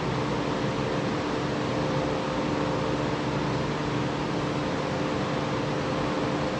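Steady fan whir and hiss with a low, even hum under it, unchanging throughout.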